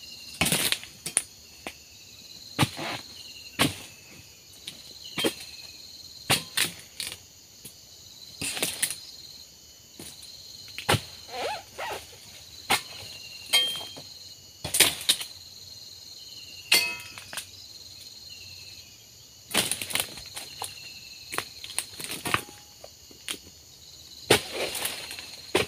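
A long-handled harvesting blade hacking at oil palm fronds and frond bases: a dozen or more sharp chopping strikes at irregular intervals, with rustling between them. Insects drone steadily and high-pitched underneath.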